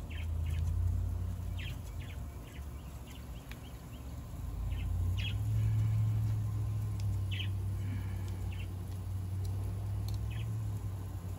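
Small birds chirping in short, scattered calls, over a low steady rumble.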